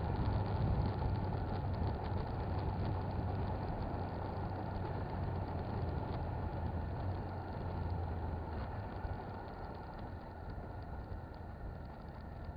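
Motorcycle engine running steadily under road and wind noise, growing gradually quieter over the last few seconds.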